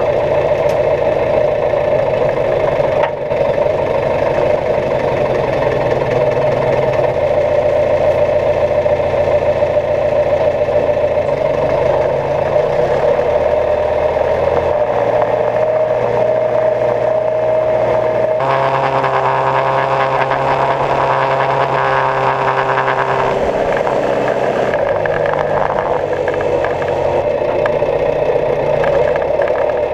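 Tractor engine running steadily and loudly, its pitch stepping up and down several times as the engine speed changes.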